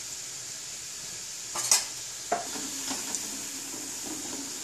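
Urad dal bondas frying in hot oil in an iron kadai, a steady sizzle, with a few sharp clinks of metal spoons against the pans, the loudest about one and a half seconds in.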